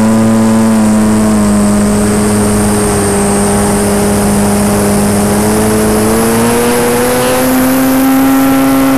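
Electric motor and propeller of a Beast 60E radio-controlled aerobatic model plane, heard from a camera mounted on the airframe: a loud, steady, pitched drone with a thin high whine above it. The pitch dips slightly about a second and a half in, then climbs over the last three seconds as the throttle is opened.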